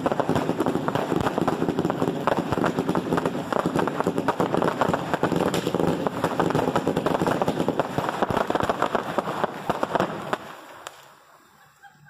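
Fireworks launching at close range in a rapid, dense barrage of shots and crackle that stops abruptly about ten seconds in, leaving only a few faint pops.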